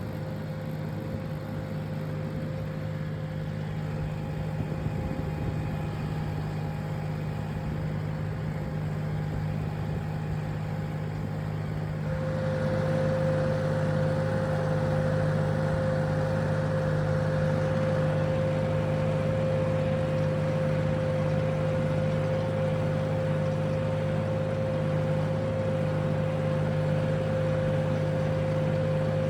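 Farm tractor engine running steadily. About twelve seconds in it gets louder and a steady higher whine comes up, then it holds at that level.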